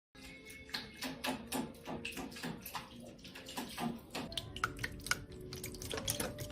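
Water splashing and dripping, with many irregular small splashes.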